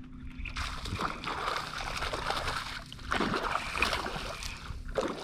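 Water splashing and sloshing, with a louder stretch of splashing a little past halfway.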